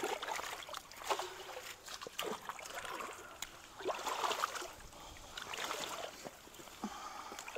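Shallow creek water sloshing and splashing in irregular bursts as long-handled tools are worked into a clog of brush and logs.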